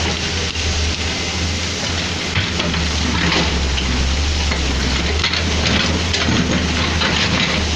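Hino Ranger dump truck's diesel engine running steadily while loose backfill pours out of the tipped bed, a dense hissing, crackling rush of soil and stones.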